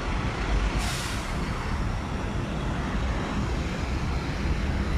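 Steady road traffic rumble, with a short hiss about a second in.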